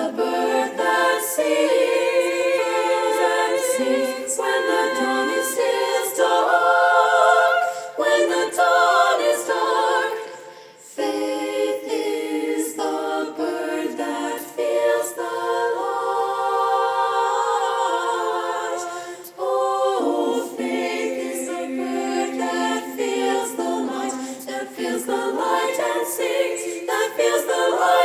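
Treble choir singing a cappella in sustained chords, with a brief break about ten seconds in before the voices re-enter.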